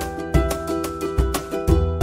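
Upbeat background music: plucked string notes over a steady, punchy bass beat.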